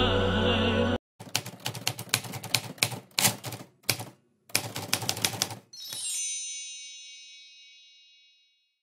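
Typewriter sound effect: keys clacking in quick runs with short pauses, then a single bell ding that rings out and fades away over about three seconds. Background music cuts off about a second in, just before the typing starts.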